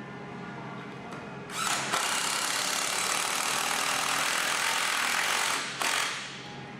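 Power drill driving a lag screw into a cedar log, running steadily for about four seconds, then a brief second pulse to seat it.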